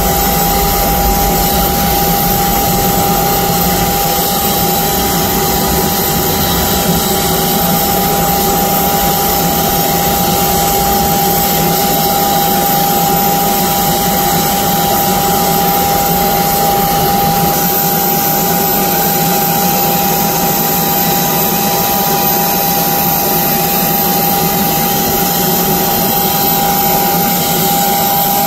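Steady, loud whine of a running aircraft turbine on the apron, a constant high tone over a continuous rushing noise, with no change in pitch.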